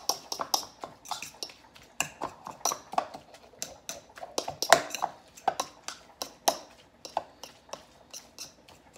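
A metal fork clinking and scraping against a mixing bowl while it mashes and breaks up canned salmon. The taps are quick and irregular, about four a second, and thin out to a few light taps near the end.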